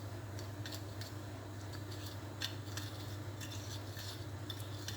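A spoon stirring powdered sugar and lemon juice together into a syrup, with light, irregular clinks and scrapes against the container over a steady low hum.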